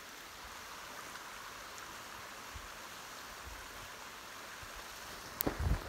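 Hot spring water flowing steadily over steaming, ice-crusted terraces, a soft even rush of water. Near the end a few loud knocks break in.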